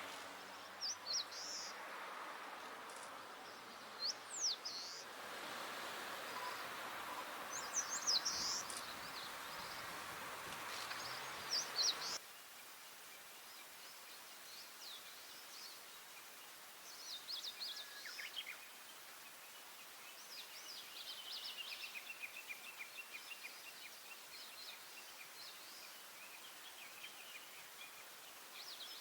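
Eastern crowned warbler singing: short high-pitched song phrases repeated every few seconds over a steady background hiss. The hiss drops off abruptly about twelve seconds in, and the song continues more faintly after that.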